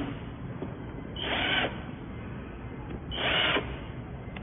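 Cordless drill driver driving screws into the lid of a battery housing, running in two short bursts of about half a second each, about two seconds apart.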